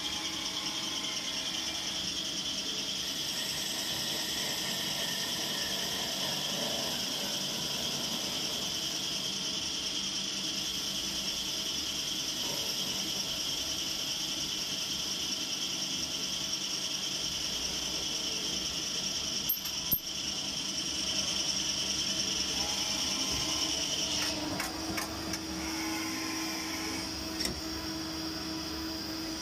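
EMCO Turn 340 CNC lathe running a turning cycle: a steady high whine from the running machine with coolant spraying. A sharp click comes about two-thirds of the way through. A little later the high whine stops and a steadier, lower hum takes over, with a few light clicks.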